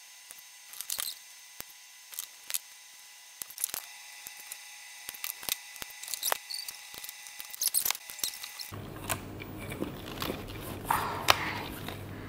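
Hard plastic ClicBot robot modules handled and clicked together, giving scattered sharp clicks and knocks. A low steady hum comes in about nine seconds in.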